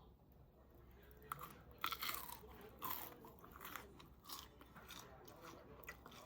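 Someone chewing crunchy food close to the microphone, with irregular crisp crunches, the loudest about two and three seconds in.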